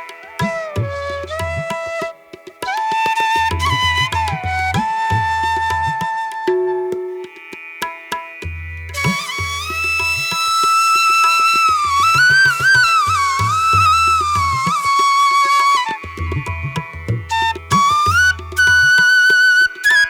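Background music: a flute melody over a tabla-like drum pattern.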